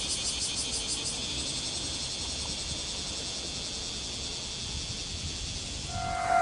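Insects chirring in grass by rice paddies: a fast high pulsing trill of about nine pulses a second at first, settling after about a second into a steady high buzz. Near the end a passing train's noise and a steady tone come up over it.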